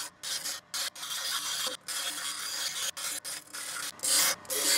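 King bench grinder's wheel grinding the teeth off a hardened steel bandsaw blade: a harsh, hissing grind that cuts out and back in abruptly many times and grows louder near the end, over the faint steady hum of the grinder's motor.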